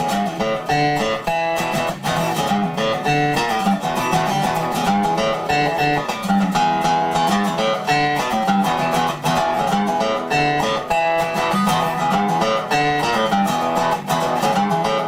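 Background music: a song led by plucked and strummed guitar with a steady rhythm, playing throughout.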